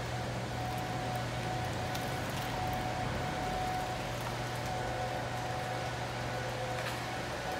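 A steady low mechanical hum under an even hiss, with a faint high tone that comes and goes; no distinct knocks or events.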